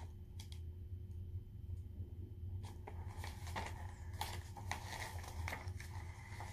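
Pages of a paper book being handled and turned: scattered soft rustles and clicks over a steady low hum.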